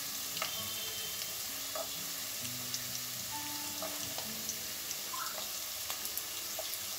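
Diced onion, garlic, carrot and French beans sizzling steadily in hot oil in a nonstick kadai, with occasional small crackles.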